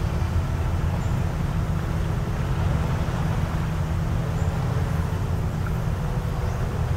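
Steady low rumble of shoreline ambience, with a few faint, brief bird chirps high above it.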